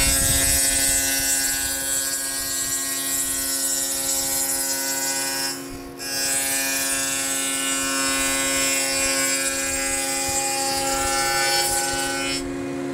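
Table saw running with a dado blade, cutting a rabbet along the edge of a plywood panel: a steady motor tone with cutting hiss, which drops out briefly about halfway through and stops near the end.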